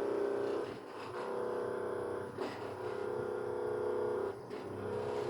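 A small electric motor humming steadily, cutting out briefly about a second in, again around two and a half seconds, and once more past four seconds.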